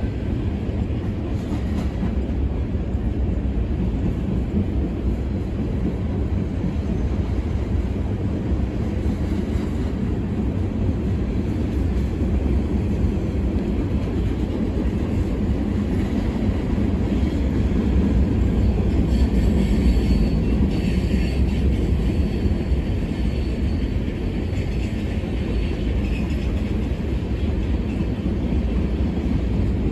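Norfolk Southern freight train's tank cars and gondola rolling past: a steady low rumble of steel wheels on rail, getting a little louder about twenty seconds in.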